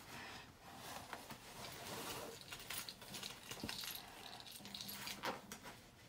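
Faint handling noise: scattered light clicks and rustling, with a couple of sharper clicks in the second half.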